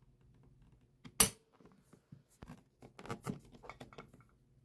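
Unloaded Glock 19 Gen 5 pistol dry-fired: one sharp click about a second in as the trigger breaks and releases the striker, then a run of smaller clicks and rattles as the slide is worked by hand to reset the trigger.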